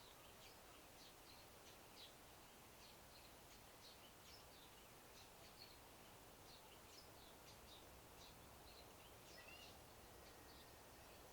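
Faint, distant small birds chirping: many short, high chirps scattered throughout over a low, steady background hiss.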